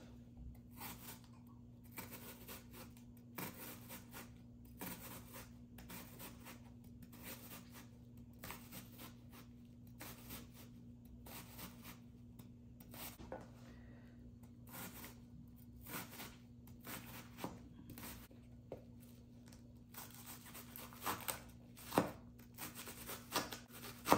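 Chef's knife slicing and dicing a red onion on a plastic cutting board: a steady series of short knife strokes against the board, about two a second, with a few louder knocks near the end.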